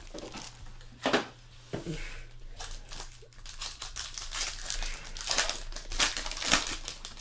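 Foil wrapper of a trading-card pack being torn open and crinkled by hand, in irregular crackling bursts, with a sharp tear about a second in and a busier run of crinkling in the second half.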